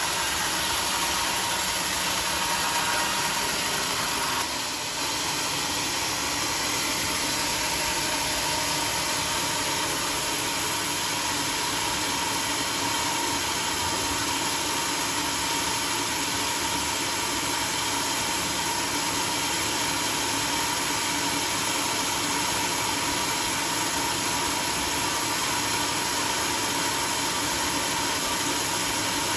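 Homemade sawmill running: a steady mix of engine and machine noise, with a short dip in level about four and a half seconds in.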